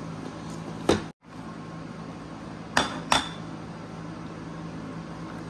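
A few sharp clacks of hard plastic toy pieces being handled and knocked together: one about a second in, then two close together near three seconds, over a steady low hum.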